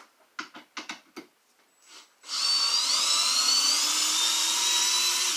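A few short knocks, then about two seconds in a power drill starts up and runs steadily, its whine rising slowly in pitch as it backs a 6-inch lag bolt out of a ceiling joist.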